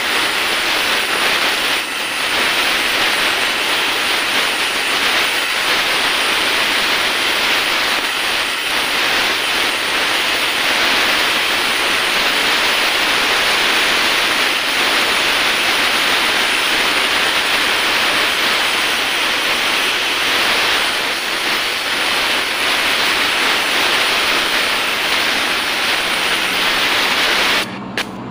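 Oxy-acetylene welding torch flame, fed with acetylene from a carbide generator, hissing steadily while welding aluminium into a motorcycle crankcase's oil drain bolt hole. The hiss cuts off suddenly near the end as the torch is shut off with the weld finished.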